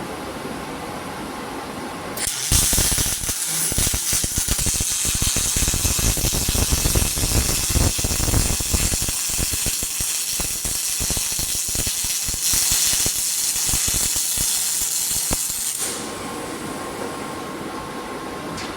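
Pulsed MIG welding arc on aluminium plates, AlMg5 1.2 mm wire at 190 amps: a loud, dense crackling buzz that strikes about two seconds in and stops about three seconds before the end, over a steady machine hum.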